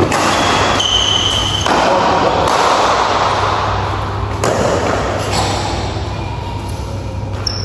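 Badminton rally in an echoing hall: several sharp racket strikes on the shuttlecock at irregular intervals, with short high squeaks of shoes on the court floor about a second in and again near the end.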